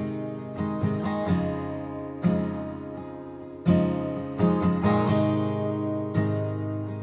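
Acoustic guitar strumming chords that ring out between strokes: an instrumental passage without singing.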